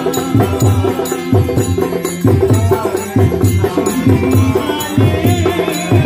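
Devotional bhajan: a man singing into a microphone over a steady drum beat, with jingling hand percussion keeping time.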